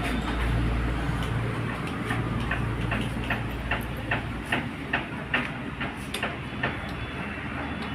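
A steady run of sharp clicks, about three a second, during work on a motorcycle's rear brake; a low hum underneath fades out in the first two seconds.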